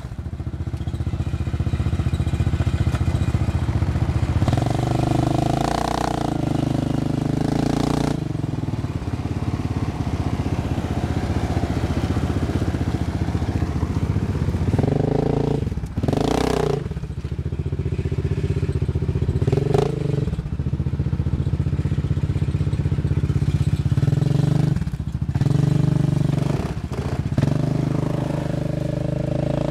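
Yamaha Grizzly 700 and Arctic Cat Mud Pro 700 ATV engines running and revving in deep mud and water, the pitch rising and falling as the throttle changes.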